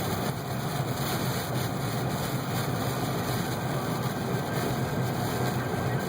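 Steady engine and road noise inside a moving car's cabin, driving on a snowy road, with no separate knocks or changes.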